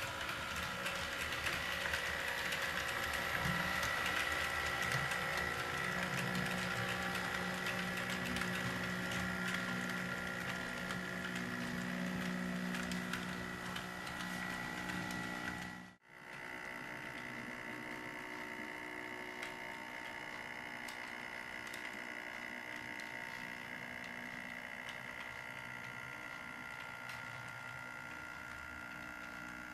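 Model train running on sectional track: a steady whine from the locomotive's electric motor over a fine, fast clicking and rattling of wheels on the rails. The sound cuts out for an instant about halfway through, then carries on slightly quieter.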